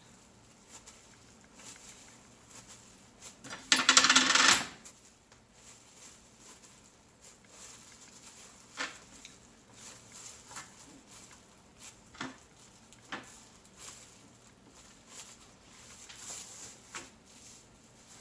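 Kitchen things being handled while rolling sushi: one loud, ringing clatter about four seconds in, then scattered light taps and clicks.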